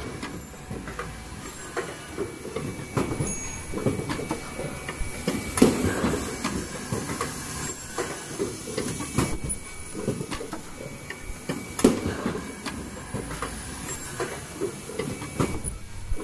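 Automatic N95 cup mask production machine running, with a continuous mechanical clatter. Louder knocks and short swells come every second or two.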